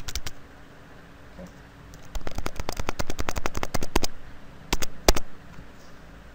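Computer keyboard keys clicking: a few presses at the start, then a quick run of about eight presses a second for about two seconds, and a few more clicks about five seconds in.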